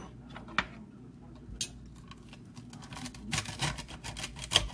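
Kitchen knife chopping celery stalks on a glass cutting board: a couple of single knocks, then a quick run of sharp chopping taps over the last second and a half.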